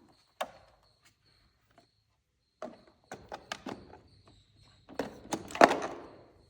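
A string of clicks and knocks, like things being handled and set down, loudest about five and a half seconds in, over a faint steady high-pitched tone.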